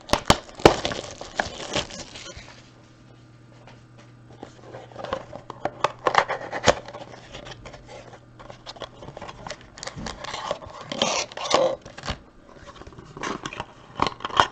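A trading-card mini box being opened by hand: a few sharp clicks at the start, then irregular tearing, crinkling and scraping of wrapper and cardboard, with a quieter spell about three seconds in.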